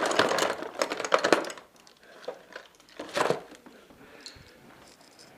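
Crinkling and rustling of plastic being handled and worked loose by hand, dense for the first second and a half, with a shorter burst about three seconds in.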